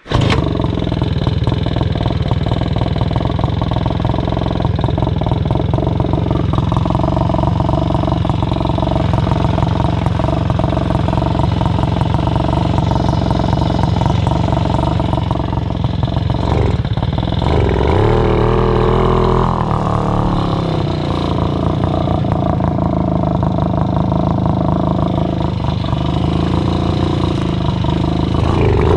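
Puch Maxi moped's small two-stroke engine running under way, a steady buzzing note; about two-thirds of the way through it dips briefly, then climbs to a new, steady pitch.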